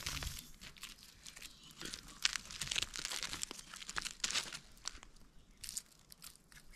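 Light, irregular crunching and rustling of dry, stony soil and grass under hands and sandalled feet, with a denser patch of crackles in the middle.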